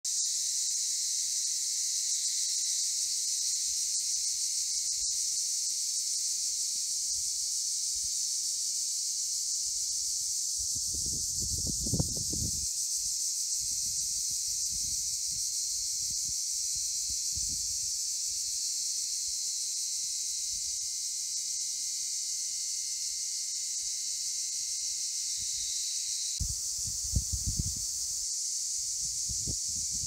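Cicadas singing together in a steady, high-pitched, unbroken buzz. A few brief low rumbles come through about a third of the way in and again near the end.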